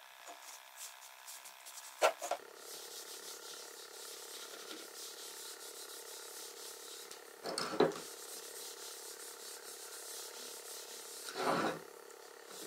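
A cloth pad rubbing Danish oil into a wooden corner joint, a steady soft rubbing. There is a sharp knock about two seconds in and two louder knocks, one around eight seconds and one near the end.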